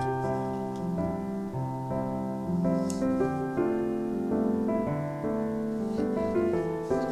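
Background piano music: a gentle melody of notes changing every half second or so.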